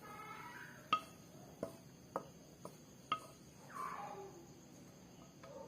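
Light clinks of a utensil against cookware, about five short knocks spread over the first three seconds, each with a brief ring, while rice is transferred from the pan to a bowl.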